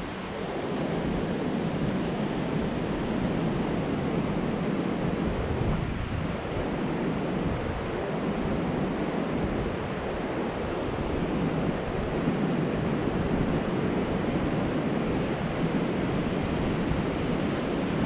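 Ocean surf washing steadily onto a beach, with wind buffeting the microphone.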